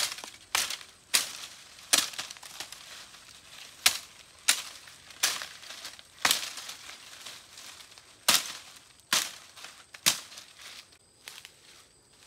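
A series of sharp cracking strikes, about a dozen at uneven intervals, some in quick succession, each with a short crunching tail.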